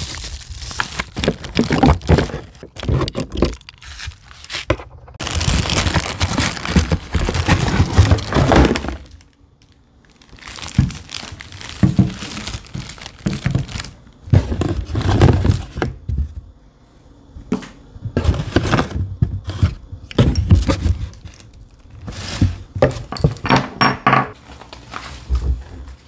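Bubble-wrap and plastic-bag packaging crinkling and rustling as it is handled and pulled apart, in irregular bursts with knocks and thunks of items being moved, and a short lull about ten seconds in.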